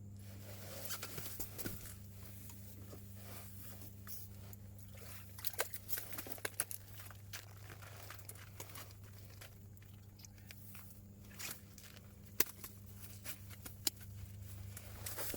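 Scattered crunches, clicks and crinkles of close handling, over a steady low hum.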